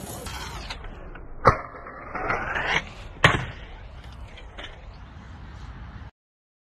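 Stunt scooter wheels rolling on concrete, with two sharp clacks of the scooter hitting the ground about a second and a half in and about three seconds in, and a short rising scrape between them. The sound cuts out abruptly near the end.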